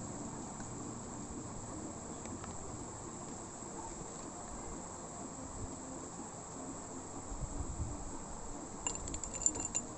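Crickets trilling steadily, a continuous high-pitched insect drone, with a few light clicks and taps in the last second.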